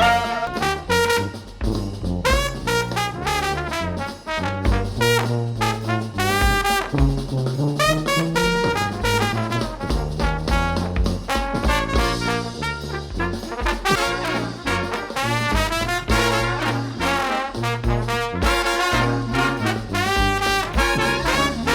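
Background music: an upbeat jazzy brass tune with horn melody over a walking bass and a steady beat.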